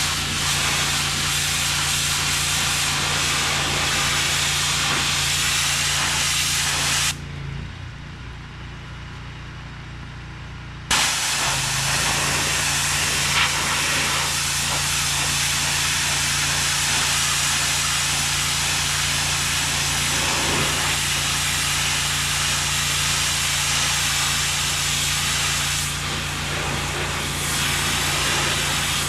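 HydroTek hot-water pressure washer spraying with a steady hiss over the low hum of its engine. The spray stops about seven seconds in for roughly four seconds while the engine runs on, then starts again.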